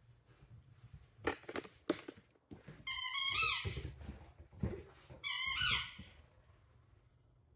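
A puppy giving two high-pitched, wavering cries, each under a second long, after a couple of sharp knocks.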